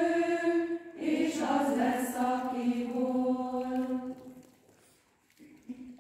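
Women's choir singing a cappella: a short break about a second in, then a phrase that ends on a held chord dying away after about four seconds, followed by faint shuffling quiet.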